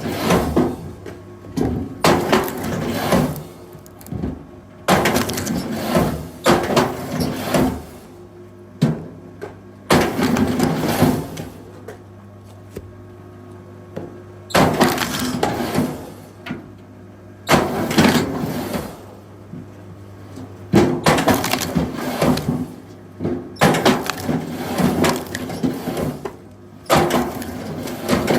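Firewood knocking, cracking and clattering in repeated bunches of sharp wooden strikes, one every couple of seconds, over a steady low hum.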